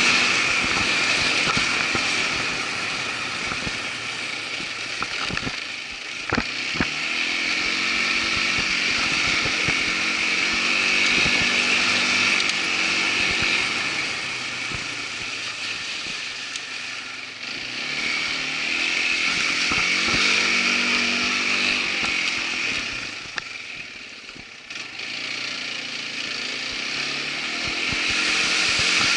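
Irbis ATV 200 quad bike's engine running under way, its pitch rising and falling as the throttle is worked, easing off briefly about 24 seconds in. A few sharp knocks come about six to seven seconds in.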